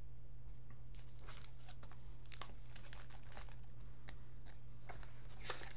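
Hardcover picture book being opened and handled: its cover and pages crinkle and rustle in a run of short, scattered crackles, over a steady low electrical hum.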